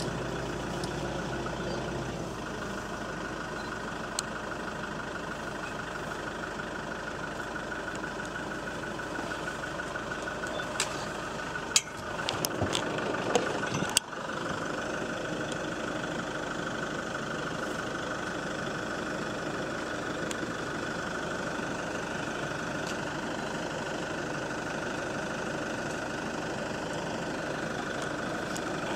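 Safari truck's engine running steadily as it drives, with a few knocks and rattles from the vehicle over rough ground between about 11 and 14 seconds in.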